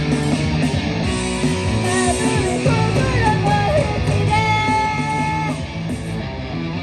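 Live rock band playing loudly, with electric guitar to the fore over bass and drums; a lead line bends in pitch in the middle, then a note is held for about a second.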